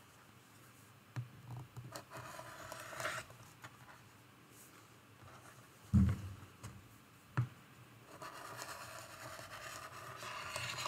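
Quiet handling of quilting-cotton fabric scraps: soft scraping and rustling, with two light knocks around the middle.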